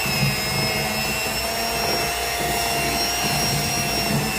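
Electric mixer running steadily with a constant whine, creaming butter and icing sugar.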